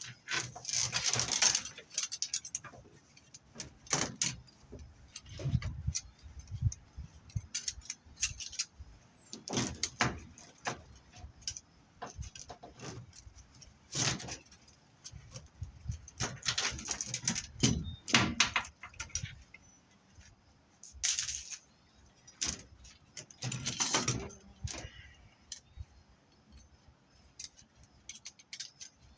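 Irregular metallic clinks, knocks and scraping rattles from handling lengths of armored BX cable and their cast aluminum end fittings.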